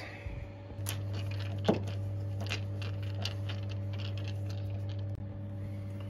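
Scattered light clicks and taps of a hand handling the white plastic magnetic limit-switch sensor on the roof rail, with one short falling squeak about two seconds in, over a steady low hum.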